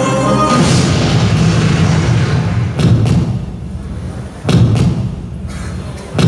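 Deep booming hits from a mime act's backing track over a hall sound system: the string music breaks off into a noisy swell, then three heavy low thuds come about a second and a half apart, each ringing out in the hall.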